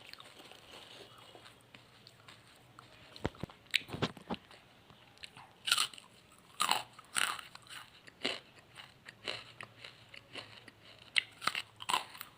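Charcoal being bitten and chewed: hard, sharp crunches in irregular clusters, starting about three seconds in after a quiet stretch.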